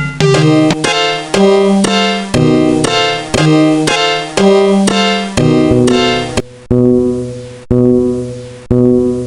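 Background music on a piano-like keyboard: chords struck about twice a second with a moving bass line, slowing about two-thirds through to single chords about a second apart, each fading away.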